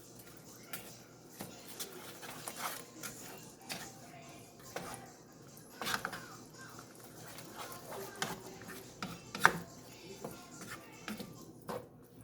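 Spoon stirring bacon into a pot of baked beans, with irregular light knocks and scrapes against the pot; the sharpest knock comes about two-thirds of the way in.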